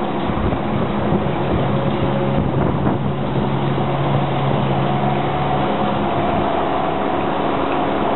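Engine of a 2007 Genie GS-3268 RT rough-terrain scissor lift running steadily as the lift drives across pavement, a steady hum whose tone shifts about halfway through.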